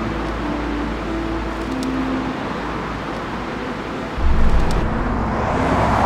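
Road traffic with cars going by, a steady wash of noise; about four seconds in a heavier low rumble swells up as a vehicle passes close.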